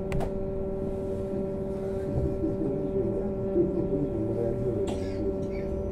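Steady electric hum of a trolleybus interior, several constant tones held together, with a low rumble growing from about two seconds in.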